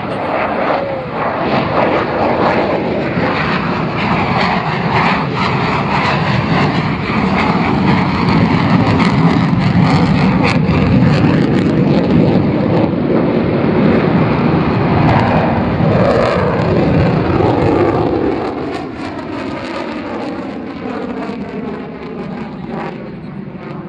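Military jet aircraft making a low pass, its engine roar building to a peak over the middle of the pass and then fading as it moves away, with a sweeping shift in tone.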